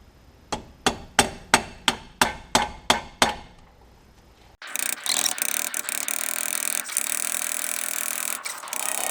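A hammer tapping a pin into a car's shift linkage, about eight sharp strikes at roughly three a second. About halfway through, background music cuts in abruptly.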